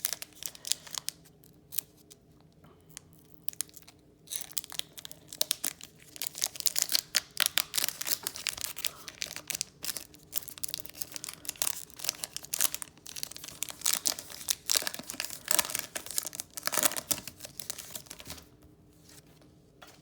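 Foil wrapper of a Pokémon TCG Celebrations booster pack being torn open and crinkled: scattered crackles at first, then about ten seconds of dense crackling and tearing that eases off near the end.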